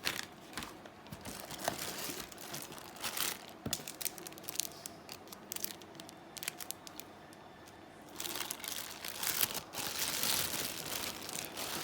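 Packaging crinkling and rustling as it is handled during unboxing, with scattered clicks and a denser, louder stretch of crinkling about eight seconds in.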